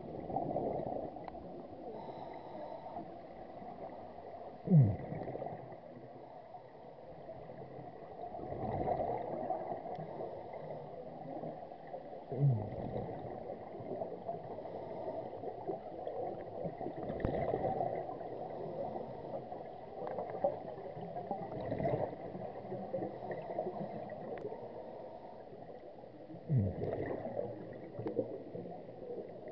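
Scuba divers' breathing underwater: exhaust bubbles from the regulators gurgling in surges every few seconds, muffled through an underwater camera housing, with a brief falling low tone three times.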